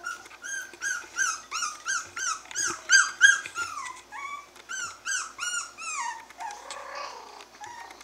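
Five-week-old Havanese puppy crying in a fast string of short, high-pitched cries, about two or three a second. Near the end the cries drop lower and trail off.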